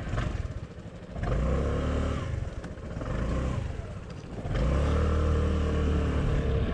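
250cc maxi-scooter engine accelerating as the scooter pulls away from the kerb: the engine note rises about a second in, eases off, then rises again at about four and a half seconds and holds steady.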